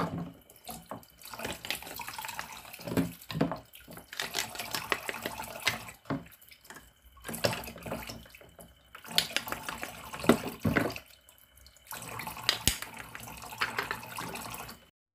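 Water running from a toy kitchen sink's faucet into its plastic basin, splashing over plastic toy vegetables rinsed under it, with light plastic knocks. The flow breaks off and starts again several times.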